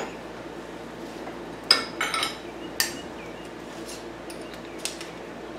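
Steel parts clinking and knocking as a motorcycle crankshaft's flywheel assembly is handled out of a press and checked with a metal measuring tool: a few sharp clinks about two to three seconds in, and fainter ones later.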